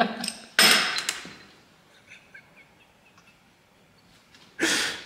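Metal hand tools and sockets rattling in a tool cart drawer as they are sorted by hand: a sudden clatter about half a second in that dies away, a few faint clinks, then another rattle near the end.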